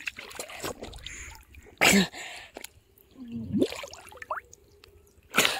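River water splashing and dripping right at a microphone held at the water surface and dipping under it, with brief muffled gurgles. A sharp splash about two seconds in and another near the end.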